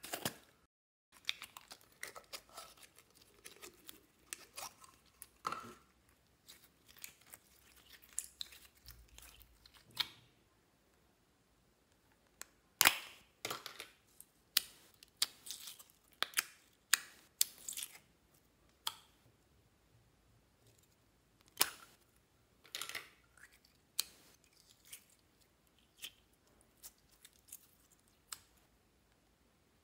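Sticky slime being handled: store-bought slime pulled from plastic tubs and pressed into a basin of mixed slime, making irregular crackling, popping and squishing sounds, with some sharper pops and clicks of the plastic containers.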